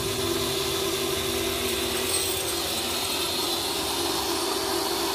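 Pressure washer running steadily during a vehicle wash: an even motor hum under a hiss.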